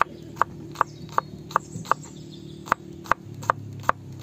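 Regular sharp knocks, about two and a half a second with one beat skipped midway, over a low steady hum.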